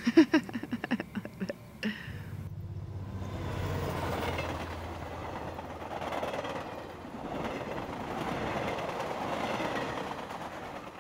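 Double-deck passenger train rolling past: a steady rumble and rush of wheels on rail that swells and eases several times and fades away near the end.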